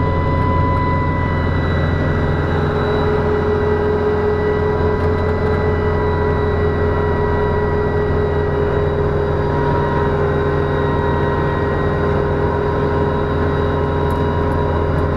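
Kamov Ka-26 helicopter in low, steady flight, heard from inside the cockpit: its two nine-cylinder Vedeneyev M14V-26 radial engines and coaxial rotors give a steady low drone, with a steady whine on top from the engines' iron cooling fans.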